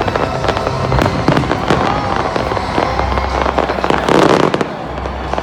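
Fireworks going off in a rapid run of sharp crackles and bangs, with a louder, denser burst about four seconds in.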